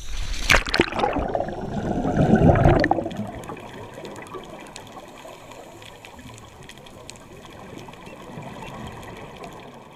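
A diver plunging under the surface: a loud rush of water and bubbles for about three seconds, then a quieter, steady underwater hiss with faint clicks.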